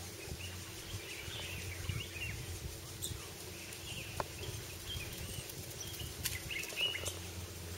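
Outdoor ambience: small birds chirping on and off over a low steady hum, with a couple of sharp clicks, one about three seconds in and one past six seconds.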